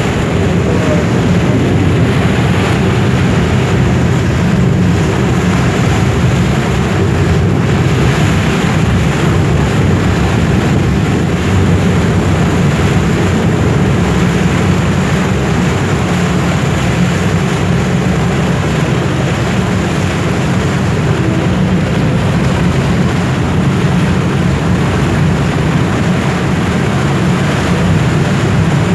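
Boat engine running steadily, a continuous low hum, heard from aboard a cruise boat under way, with wash and air noise above it.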